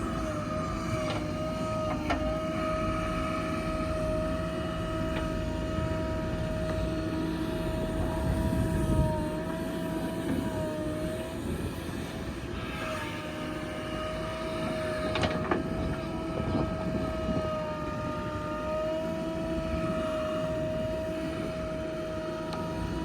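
JCB 3DX backhoe loader's diesel engine running at working revs with a steady high whine that wavers slightly in pitch. A few short knocks are heard, about two seconds in and again about halfway through.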